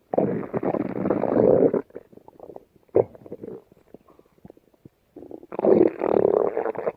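Stomach growling: a long rumble of almost two seconds, a short gurgle about three seconds in with faint gurgles around it, then another long rumble starting near the end.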